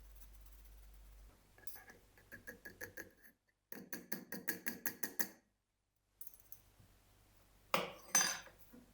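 Kitchen utensils clinking against crockery: quick, even taps at about six a second in short clipped runs, then two louder clatters near the end.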